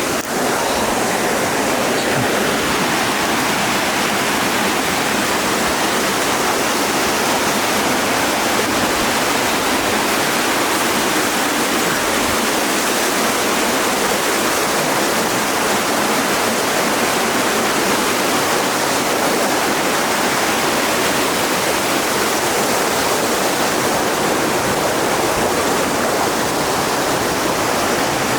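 Steady rushing noise of heavy rain and flowing floodwater, unbroken and even.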